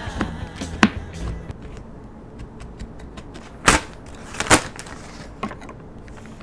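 Close handling sounds on a countertop: a few sharp clicks and taps, the loudest two in the second half, as a plastic zip-lock bag and a wooden cutting board are handled.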